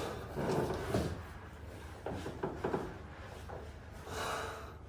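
Rubbing and light knocks of a body shifting on a padded chiropractic treatment table while the patient is being adjusted. A brief rush of noise comes a little after four seconds in.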